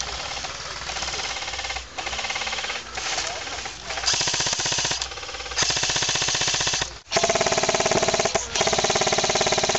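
Airsoft electric guns firing on full auto: several long bursts of rapid clicking shots, one after another with short pauses. The later, louder bursts carry the whine of the gun's gearbox motor.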